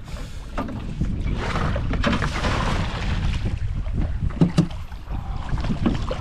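Hooked redfish splashing and thrashing at the water's surface beside a small boat, under a steady rumble of wind on the microphone. The splashing is strongest about two to three seconds in, and there is a sharp knock a little after four seconds.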